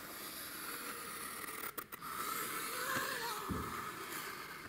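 Pencil scratching along a plastered wall as a marking line is drawn against a spirit level. A brief falling tone comes about three and a half seconds in.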